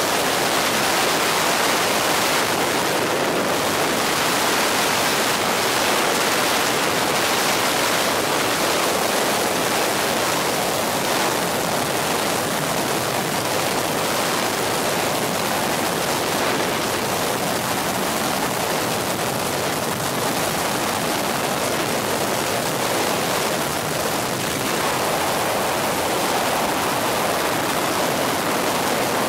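Steady rushing noise of a helicopter in flight, heard from inside the cabin: engine and airflow blended into an even hiss with no distinct rotor beat.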